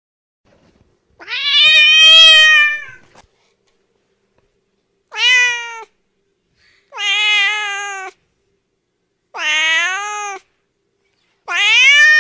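Domestic cat meowing: five separate meows with short silences between them, the first the longest at about two seconds, the last starting near the end.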